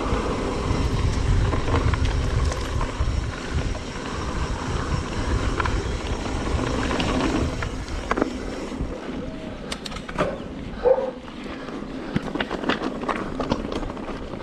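Mountain bike riding a trail: wind rumbling on the microphone over tyre and bike noise. About eight seconds in the rumble drops, and sharp clicks and rattles from the bike over rough ground take over.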